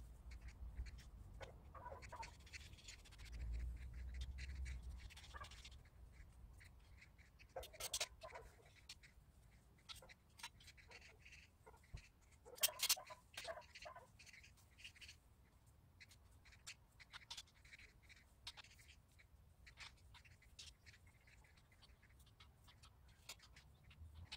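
Faint, scattered clicks, taps and scrapes of metal greenhouse frame pipes and fittings being handled and fitted together, with two louder moments about eight and thirteen seconds in.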